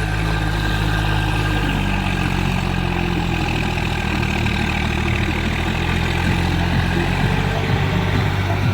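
Heavy diesel engine idling steadily, its low note shifting slightly about two seconds in.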